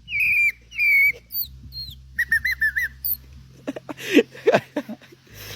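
A man whistling bird-like chirps: a run of short warbling notes that rise and fall, some quickly trilled. About four seconds in come a few shorter, lower squeaky sounds and clicks.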